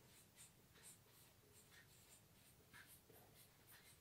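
Faint scratching and squeaking of a marker pen writing on a whiteboard, in short irregular strokes, a couple each second.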